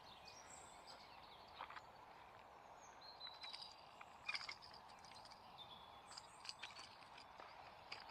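Faint open-air ambience with scattered birdsong: short high chirps and whistles. A few soft clicks and taps are mixed in, the loudest a little past the middle.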